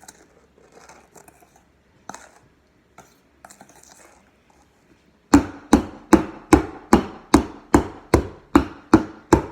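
A cake pan full of batter banged down repeatedly on the counter, starting about five seconds in and going at about two and a half knocks a second, each knock with a short ring. The knocking is done to break up the air bubbles in the batter.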